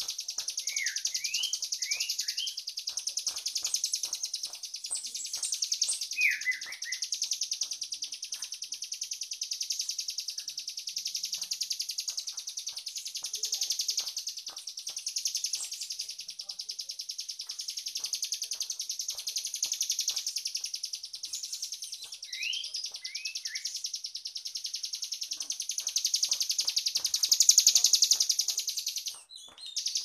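Caged long-tailed shrike (cendet) singing: a continuous, fast, high-pitched chattering trill broken by short upward-sweeping whistles a few times. The sound briefly cuts out near the end.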